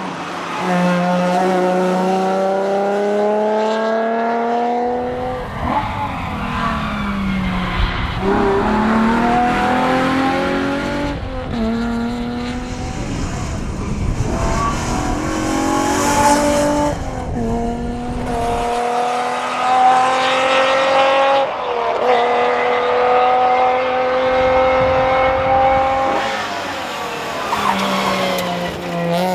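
Alfa Romeo GTV6's V6 engine pulling hard through the gears, rising in pitch, then dropping sharply at each upshift or lift several times over. A low rumble runs under it for a stretch in the middle.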